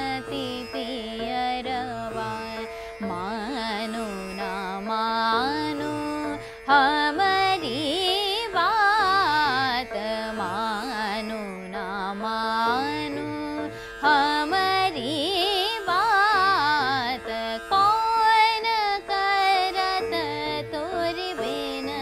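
A woman sings the sthai of a chota khayal in Raag Bageshri, in ornamented gliding phrases with pauses between lines, over the steady drone of a plucked tanpura. The phrases grow louder and more elaborate from about a third of the way in.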